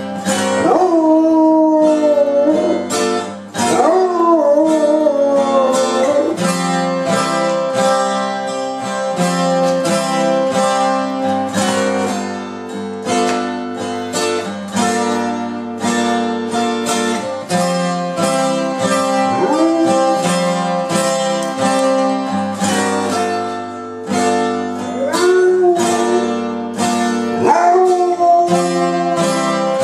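A basset hound howling along to acoustic guitar music. Several drawn-out howls slide up and down in pitch over a fast run of plucked guitar notes, and the guitar is the louder sound.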